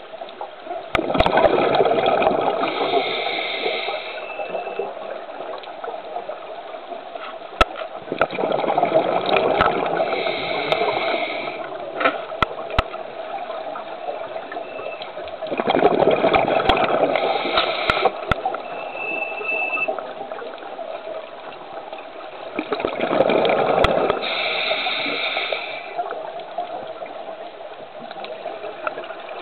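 Scuba diver breathing through a regulator underwater: four long rushes of exhaled bubbles about seven seconds apart, with a quieter steady hiss between them.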